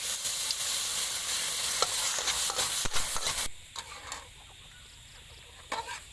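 Garlic and fish sauce sizzling in hot oil in a pan, with the clicks of stirring. The sizzle cuts off suddenly about three and a half seconds in, leaving quiet with a few utensil ticks that pick up again near the end.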